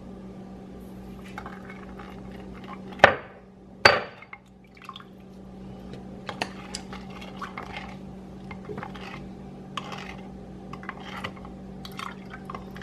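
Two sharp glass clinks a little under a second apart, then a metal spoon stirring sugar into soy-sauce marinade in a glass bowl, with many light taps and scrapes against the glass.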